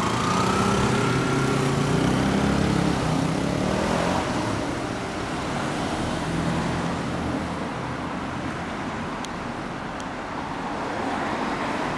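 Several 125 cc motorcycles pulling away, their engines revving with rising pitch for the first few seconds. The engines then blend into a steady wash of street traffic noise.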